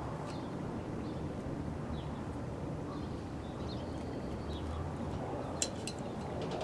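Steady low outdoor background rumble with a few faint bird chirps in the middle. About five and a half seconds in comes a short cluster of light clicks from small parts being handled at the work table.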